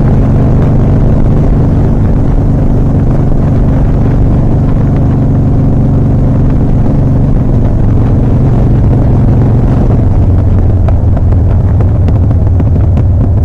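2007 Harley-Davidson Softail Custom's V-twin engine running steadily while riding, with wind and road noise. About ten seconds in the engine note drops lower and scattered light pops come in. The engine is one the owner says runs sluggish and threatens to stall.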